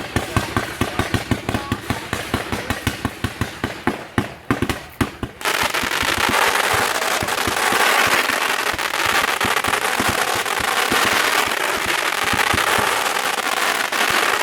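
Fireworks display: a fast run of sharp bangs, several a second. About five seconds in it changes to a dense, continuous crackling.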